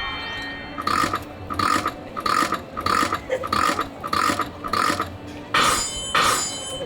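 A person sneezing over and over in a fit that won't stop: about seven short sneezes at an even pace, then two louder ones near the end.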